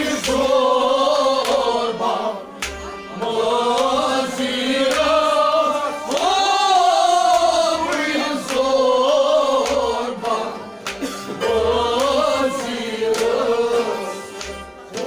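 A Kashmiri Sufi song sung in long, wavering phrases, with a plucked Kashmiri rabab and sharp hand-drum strokes.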